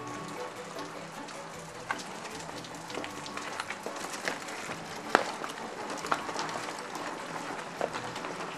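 Soft background music over a steady hiss of light rain, with scattered sharp clicks and knocks, the loudest about five seconds in, from a mountain bike being wheeled down wet cobbled steps.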